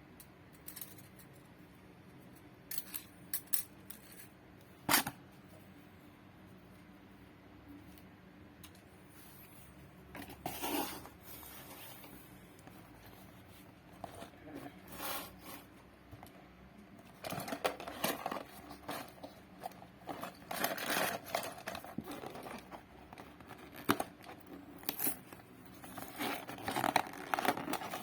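Packaging being handled and opened by hand: a few sharp clicks early on, then scrapes, and from about halfway through a longer stretch of irregular rustling, crinkling and tearing.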